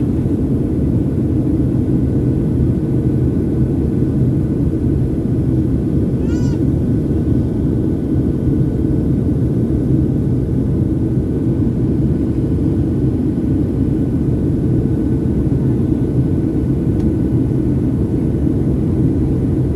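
Steady roar of a Boeing 737 airliner's cabin in flight, the deep rush of the jet engines and air flow. About six seconds in, a brief high voice-like call rises faintly above it.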